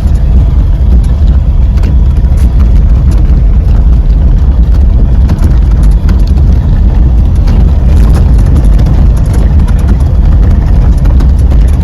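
Heavy, loud low rumble of a vehicle moving over a rough road, with frequent knocks and rattles throughout.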